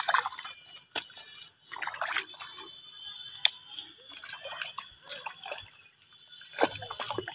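Water splashing and dripping in irregular bursts, with wet squelches and slaps from fish and a wet fishing net being handled.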